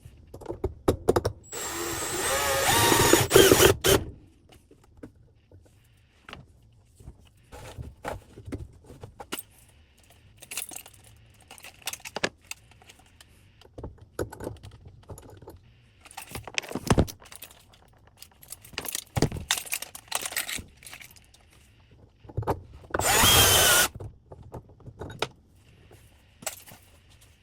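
Power drill running in two short bursts, one about two seconds in and one near the end, with scattered knocks and clatter of tools and parts being handled between them.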